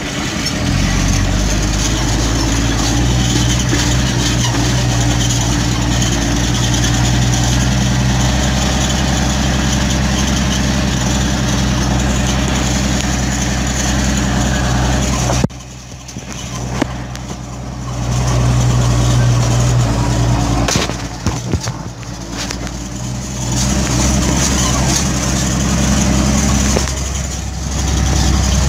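Farm tractor's diesel engine running under load, heard from inside the cab while it pulls a loaded trailer. The engine sound drops off abruptly about halfway through, then rises and falls again.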